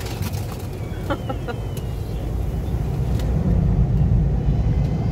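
Automatic tunnel car wash heard from inside the car: water jets spraying over the windshield and body, with a steady low rumble from the wash machinery that grows louder about three and a half seconds in.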